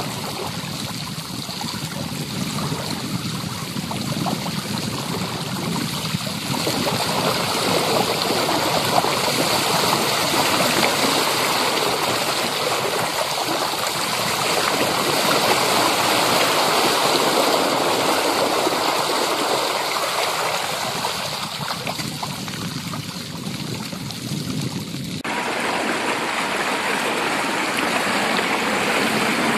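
Bicycle tyre ploughing through shallow floodwater on a paved trail, a steady rush of spray and splashing that swells louder in the middle. About five seconds before the end the sound changes abruptly to a thinner, hissier rush.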